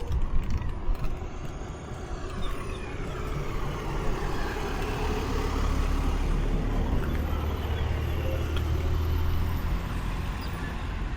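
Royal Enfield Continental GT 650's 648 cc parallel-twin engine and exhaust running steadily at road speed, a low rumble with rushing wind mixed in.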